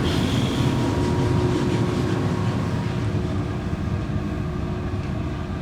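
Steady mechanical rumble with a constant low hum.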